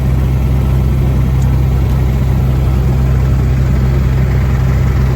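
Steady, loud drone of a small propeller airplane's engine, heard from inside the cabin.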